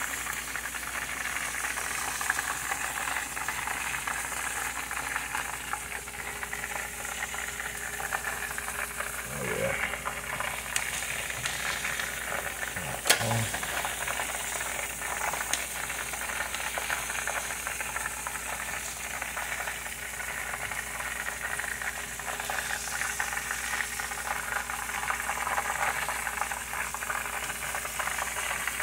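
Breaded chicken wings frying in hot oil, a steady sizzle, as the wings are lifted out. A single sharp click about halfway through.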